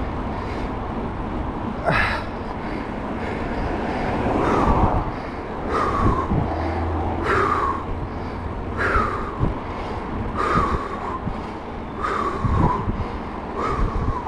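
Loud, steady interstate traffic noise, with a short falling tone repeating about every second and a half.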